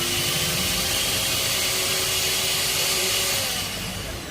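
Small high-speed electric motor running steadily with a whine, then dying down shortly before the end.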